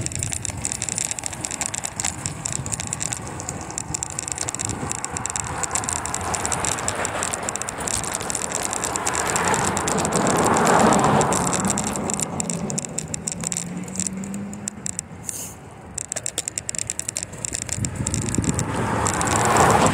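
Bicycle riding along the pavement: the bike's parts and the camera mount rattle, with steady wind on the microphone. The noise swells louder about halfway through, and a run of rapid ticking follows near the end.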